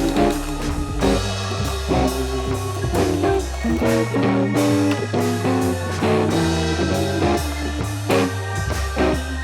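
Background music: upbeat guitar-led rock/blues track with bass and drums and a steady beat.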